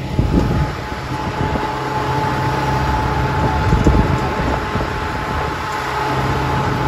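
Farm tractor's diesel engine running steadily as it tows a hay-ride wagon, with a steady whine over it and the wagon rattling and knocking over the lane.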